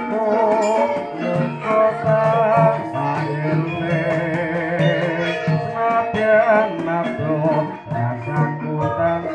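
Javanese gamelan music: voices sing a song with vibrato over metallophones and a drum keeping a steady beat.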